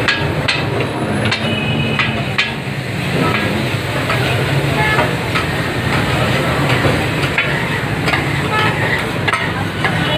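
Metal spatulas clanking and scraping irregularly on a large iron tawa griddle as keema and meat are chopped and stirred, the clanks ringing briefly, over a steady sizzle of frying.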